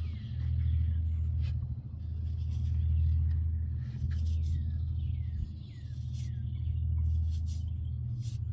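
Wind buffeting the microphone in a steady low rumble that swells and dips, with a bird giving five or six short falling whistles about halfway through.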